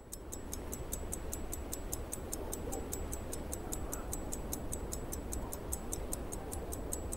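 Rapid, even ticking, about six ticks a second, over a low steady rumble.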